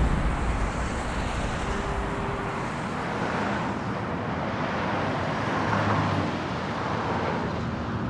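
Road traffic noise: a steady wash of cars and tyres on the road, loudest at the start and then evening out.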